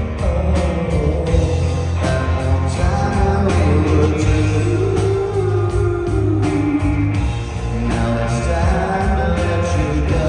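Live rock band playing, with guitars, bass and drums under a sung male lead vocal.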